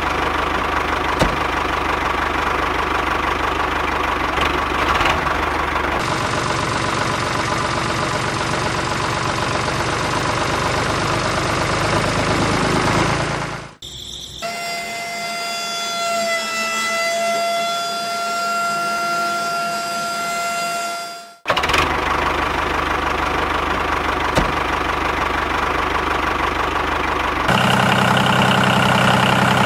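Engine sound of a miniature DIY tractor running steadily with a fast, even pulse. About fourteen seconds in it cuts out and a steady high whine with overtones takes over for about seven seconds, then the engine sound returns, deeper and louder near the end.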